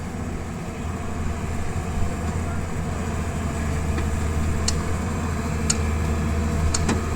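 Backhoe loader's diesel engine running steadily, with a few sharp clicks in the second half.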